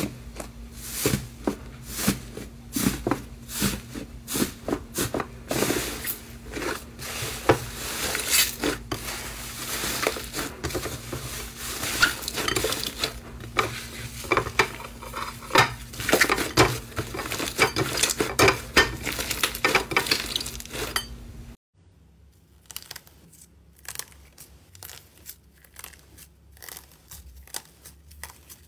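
Hands pressing and kneading soft, airy slime, giving a dense, irregular run of crackling pops and clicks. About three-quarters of the way through it cuts to quieter, sparser crinkling as a palm presses slime covered in crumpled silver foil.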